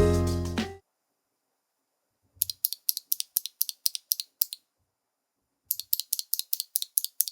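Akko CS Sakura mechanical key switches on a MonsGeek M1 keyboard clicking in two quick runs of sharp plastic clicks, about five or six a second, with a pause of about a second between.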